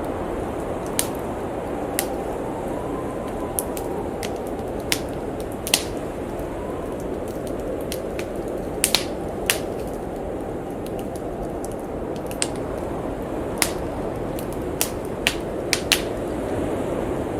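Wood fire crackling in a fireplace, with sharp, irregular pops, over the steady howl of blizzard wind outside. A faint whistle in the wind rises and falls a couple of times.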